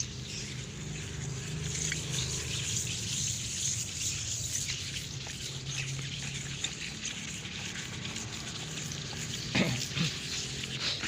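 Wet sandpaper rubbing over a car's painted body panel with water, sanding the paint smooth before the clear coat goes on. The rubbing is steady, with a couple of louder strokes near the end.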